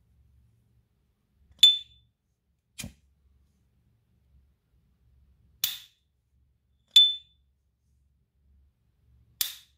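Silver S. T. Dupont Ligne 2 lighter's lid flicked open twice, each time with its characteristic bright, briefly ringing "ping", the loudest sounds here. A duller knock follows the first ping as the lighter is lit, and each opening is later followed by the plainer snap of the lid closing.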